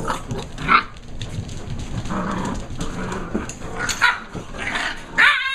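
German Shepherd puppies play-fighting: scuffling, growls and short barks, with a high yelp just before the end.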